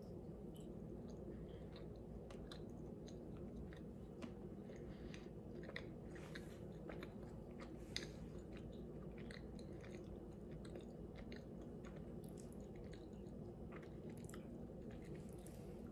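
A person chewing a homemade date bar with the mouth closed: faint, irregular wet clicks and smacks over a steady low hum, one click a little louder about halfway through.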